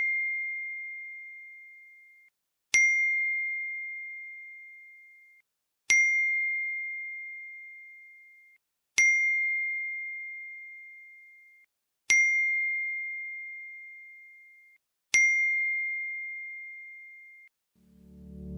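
A single high bell-like ding repeated at even intervals, about every three seconds, each one ringing out and fading over two seconds or more. Each strike sounds the same.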